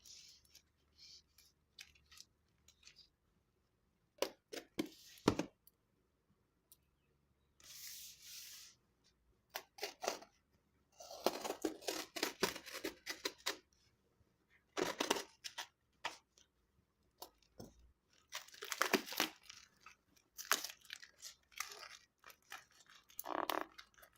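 Packaging being torn open and handled by hand: irregular ripping and crinkling noises of a second or so, with sharp clicks and knocks and quiet gaps between them.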